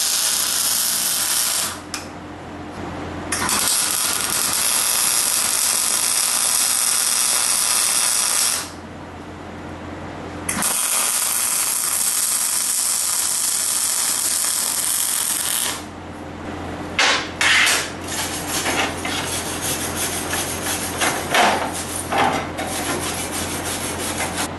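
Wire-feed welder arcing in three runs of steady crackling hiss, the longest about five seconds, with short breaks between them. After that, a hammer chipping at the fresh weld in quick, irregular knocks and scrapes.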